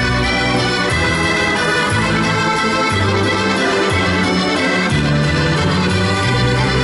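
Accordions played live together: full sustained reed chords over a bass line that moves every half second to a second.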